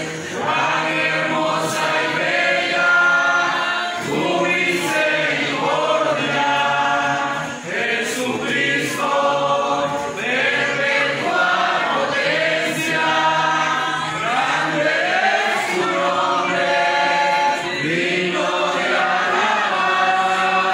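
A congregation singing a hymn together, many voices at once, steady throughout.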